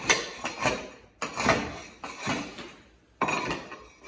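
Long-handled floor scraper pushed across a wooden subfloor to strip carpet glue: several rasping scrapes about a second apart, each starting sharply and fading out.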